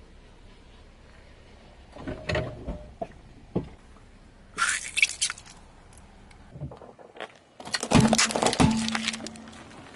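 Car tyre rolling over and crushing small objects one after another, with short cracks and squashing sounds. The loudest is a dense crunch near the end as small plastic tubs are flattened.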